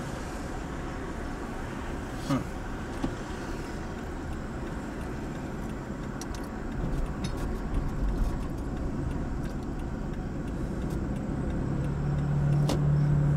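Moving car heard from inside the cabin: steady engine and road noise, with a few light clicks and rattles. A low steady hum grows louder near the end.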